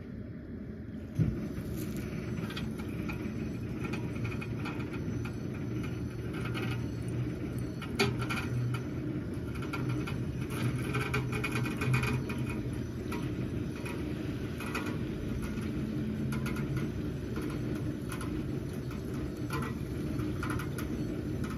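Tow vehicle's engine running steadily as it pulls a loaded boat trailer up a gravel beach out of the water, with the crunch and crackle of tyres on gravel. A sharp knock about a second in and two more about eight and twelve seconds in.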